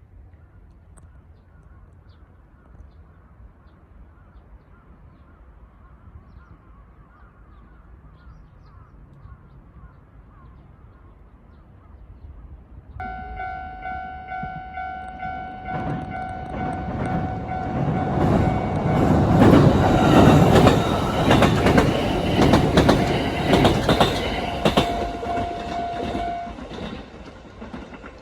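Kintetsu electric train passing over a level crossing. Its wheels clatter over the rail joints, building to a loud peak about two-thirds of the way in and fading near the end. Beneath it the crossing alarm sounds a steady ringing tone from about halfway in until shortly before the train noise dies away.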